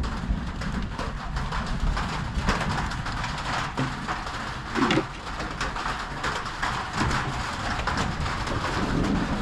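Hens in a chicken coop clucking and murmuring, with scattered light clicks and knocks throughout.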